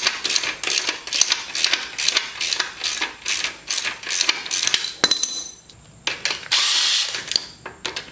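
Hand ratchet wrench clicking in quick repeated strokes, about three a second, as a tight foot peg mounting bolt on a 1980 Yamaha YZ250 frame is worked loose. Near the end come two short steady whirring bursts.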